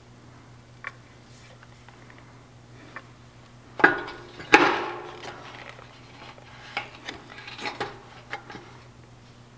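Metal parts and tools clinking and knocking while air compressor regulator fittings are handled: scattered light clicks, two louder clanks with a short ring just before and after the halfway point, then a run of smaller clinks. A faint steady low hum runs underneath.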